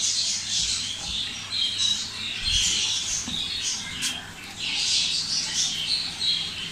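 Small birds chirping and twittering, a busy run of short high-pitched calls, with a soft low thump about two and a half seconds in.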